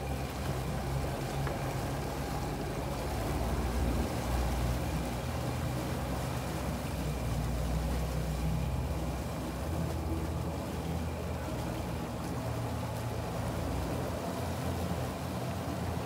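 Twin outboard motors on a Boston Whaler running at low docking speed under joystick control, with a steady low hum and propeller wash churning the water. The engine sound swells slightly a few times as thrust is applied.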